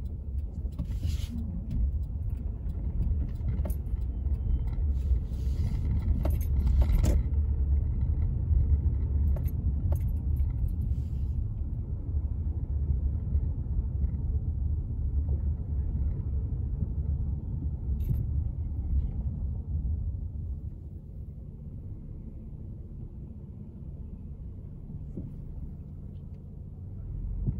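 Car cabin noise while driving: a steady low rumble of engine and tyres, with scattered light clicks and rattles in the first several seconds. The rumble drops quieter about three-quarters of the way through.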